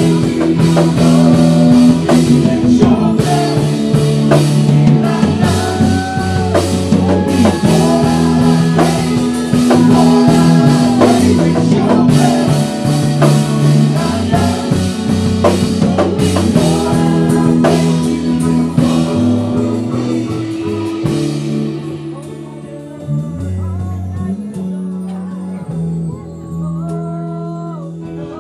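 Contemporary worship music: a band with drums and guitar playing under singing. About three-quarters of the way through, the drums drop out and it goes quieter, with held chords and a few sung lines.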